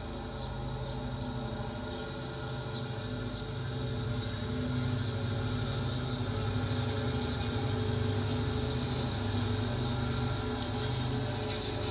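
Diesel locomotives hauling a BNSF coal train, their engines running in a steady low drone that grows louder about four seconds in as the train draws nearer.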